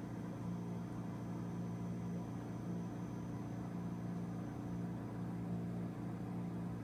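A steady low hum, with a faint pulsing tone in it, runs without a break.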